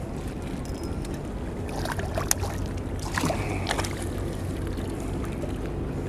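A hooked fish splashing at the surface as it is scooped into a landing net, in a cluster of sharp splashes about two to four seconds in. A steady low hum runs under it.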